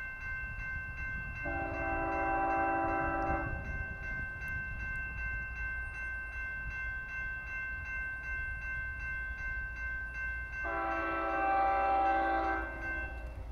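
An approaching CSX freight locomotive sounds its multi-chime air horn in two long blasts, about two seconds each, the first about a second and a half in and the second near the end. A steady, rapidly pulsing ringing tone runs underneath throughout.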